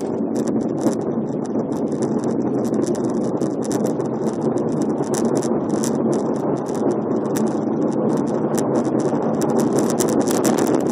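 Car driving through a road tunnel: steady road and engine noise, with rapid irregular clicking on top.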